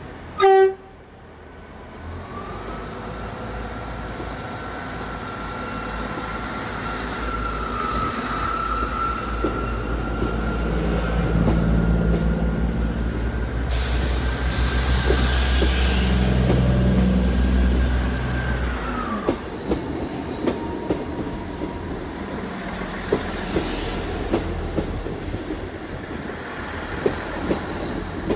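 South Western Railway Class 159 diesel multiple unit pulling away: a short horn blast, then the diesel engines and transmission building up with a steady whine as the train gathers speed. A high-pitched wheel squeal comes in past the halfway mark, the engine note drops away about two-thirds through, and the wheels then click over the rail joints and points as the coaches roll past.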